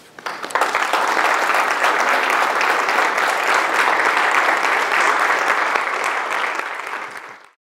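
Audience applauding: the clapping swells within the first half second, holds steady, then fades and cuts off abruptly just before the end.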